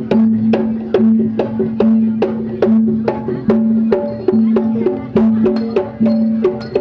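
Kuda kepang accompaniment music: an even, fast rhythm of sharp percussion strokes, several a second, over a held low note that sounds again and again.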